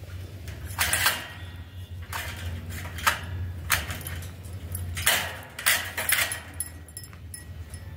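Wire birdcage bars rattling and clinking in a series of short bursts.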